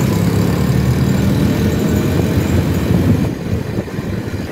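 Motorcycle engine running while riding along a street, with road noise; the sound eases off somewhat about three seconds in.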